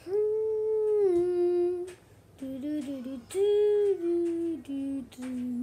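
A child's voice humming a short wordless tune: two long held notes, each stepping down in pitch partway through, with shorter wavering notes between and after them.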